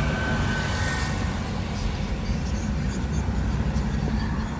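Steady low rumble of the car's engine and tyres on the road, heard from inside the moving car's cabin.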